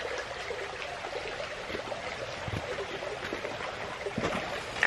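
Creek water trickling and babbling steadily, with a couple of faint knocks near the end.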